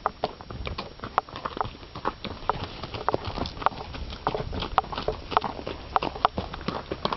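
Horses' hooves clip-clopping on a rocky dirt trail at a walk, an uneven run of hoof strikes several a second.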